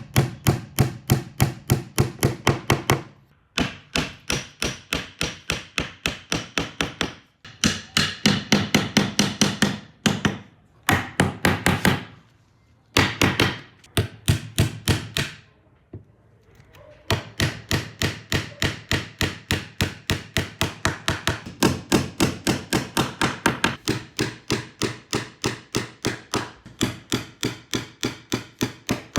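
Hammer striking wood in quick, even runs of about four blows a second, each blow ringing briefly, with short pauses between runs.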